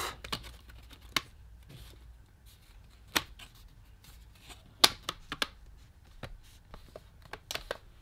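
Plastic laptop screen bezel being pressed into place by hand: scattered sharp clicks and taps as the clips are pushed in, with faint handling rustle between them.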